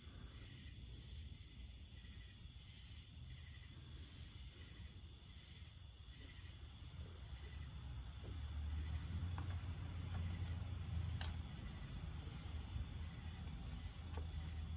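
Quiet background: faint insect-like chirping pulses, about one and a half a second, over a steady high whine and a low hum that swells in the middle. There are a couple of faint clicks near the middle.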